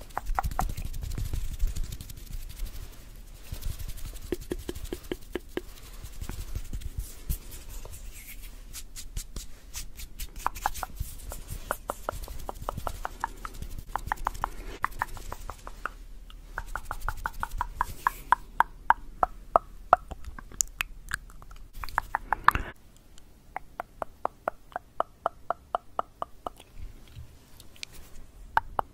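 Tongue clicking close to the microphone: quick runs of sharp clicks, with wet mouth sounds between them.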